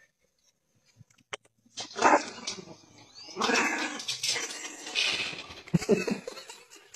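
A dog barking and growling in several bursts, starting about two seconds in.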